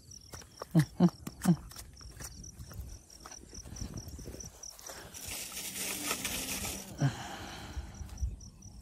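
Three heavy thumps about a second in and a rustle at about five to seven seconds, as someone moves about and handles gear, over an insect chirping steadily at a high pitch.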